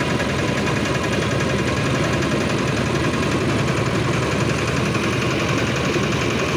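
Railway motor trolley running along the track, its engine going steadily and loudly.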